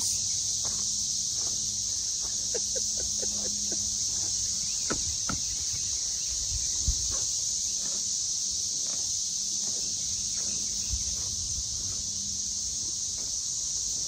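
Chorus of cicadas: a dense, steady, high-pitched drone with no breaks, and a faint low hum beneath it.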